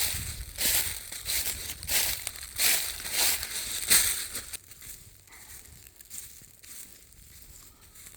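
A hiker's footsteps crunching on the trail at an even walking pace, about one and a half steps a second, stopping about four and a half seconds in.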